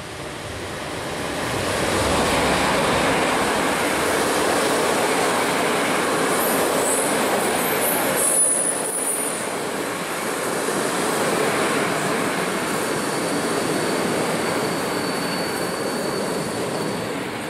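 Electric-hauled passenger train passing close by: a steady rushing rumble of coach wheels on the rails that builds over the first two seconds and holds as the coaches go past. Brief high-pitched wheel squeals come about halfway through, and a thin steady whine near the end.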